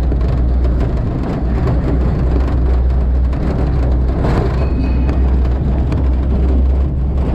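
Small mine tourist train running through a rock tunnel: a loud, steady low rumble.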